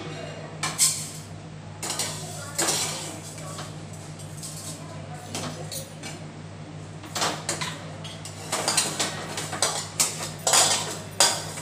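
A steel spatula scraping and knocking against a steel kadhai and a steel plate as fried vermicelli is scooped out of the pan: scattered metallic clinks and scrapes that come thicker in the second half. A steady low hum runs underneath.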